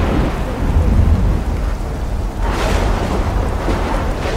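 Rain and rolling thunder over a deep bass rumble, with a swell of thunder about two and a half seconds in.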